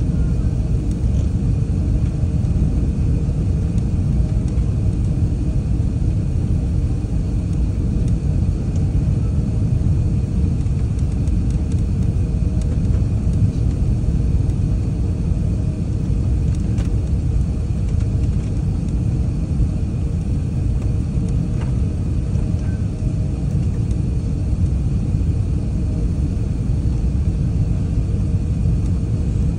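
Steady cabin noise inside an Airbus A380 descending on approach: an even low rumble of engines and airflow, with faint steady tones above it.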